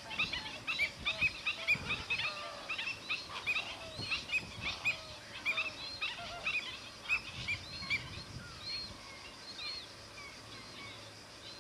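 A flock of waterbirds calling, many short high calls overlapping several times a second, thinning out over the last few seconds.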